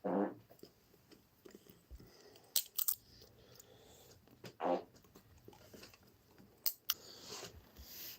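A person chewing, with a few sharp clicks, and two short low buzzing sounds: one right at the start and one about four and a half seconds in.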